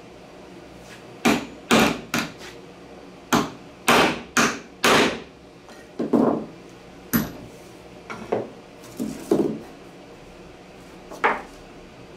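About a dozen sharp, irregularly spaced knocks and clatters of plywood parts and a cordless angle grinder being handled and set down on a wooden workbench.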